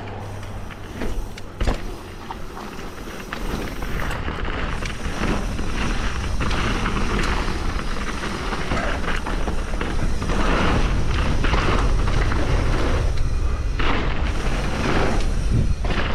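Wind buffeting a chest-mounted action camera's microphone as a mountain bike rolls down a dirt trail, with tyre noise on gravel and knocks from the bike over bumps. The rumble grows louder as speed builds after about three seconds.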